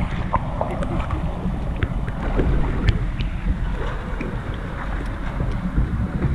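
Wind buffeting the microphone as a steady low rumble, with scattered small clicks and knocks.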